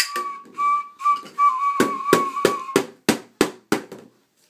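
Pink plastic toy drum struck about seven times in an even beat, roughly three a second. Under the first half runs a high, steady whistle tone sounding in short repeated blasts, which stops as the drumming gets going.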